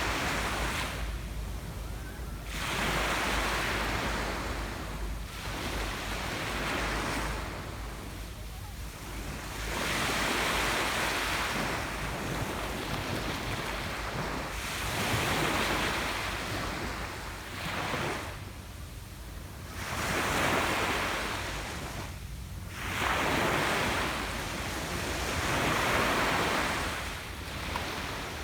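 Ocean waves breaking on a beach, each surge of surf swelling and washing back every few seconds, with a constant low wind rumble on the microphone underneath.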